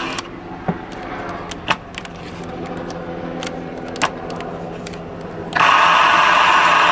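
Volkswagen Sapphire V AM car radio tuned between stations: a low hum and hiss with scattered crackles and clicks, then loud static starting about five and a half seconds in.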